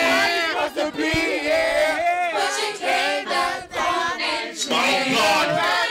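A crowd of men and women singing along together, many voices at once with wavering, overlapping pitches.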